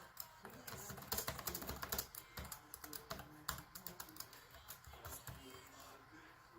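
Typing on the HP Compaq 6820s laptop's keyboard: a quick, irregular run of soft key clicks.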